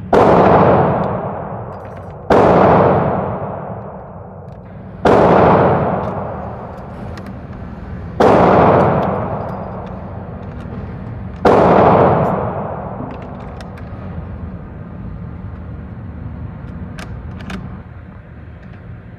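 Five shots from a 6.5×52mm Carcano bolt-action rifle, fired every two to three seconds, each with a long echoing decay.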